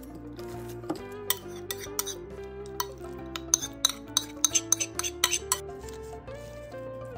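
A metal spoon clinking and scraping against a ceramic plate while sautéed chopped mushrooms are scraped off, with a quick run of clinks in the middle, the loudest sound here. Background music plays throughout.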